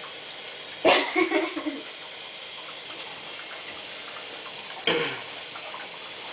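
Water running steadily into a bathtub, an even hiss, with two brief louder noises, one about a second in and a shorter one about five seconds in.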